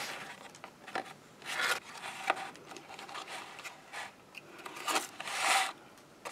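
Stiff white card rustling and scraping under the hands in short bursts, with a couple of light ticks. The longest rustle comes about five seconds in.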